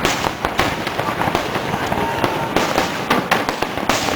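Fireworks display: a dense, unbroken run of bangs and crackling bursts, several a second.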